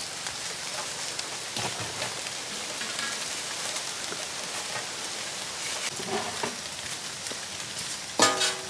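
Wet squelching and slapping of hands working lobsters in a thick masala paste, over a steady hiss with faint small clicks. Near the end comes a brief, louder metallic clank as a heavy iron wok is set onto the fire.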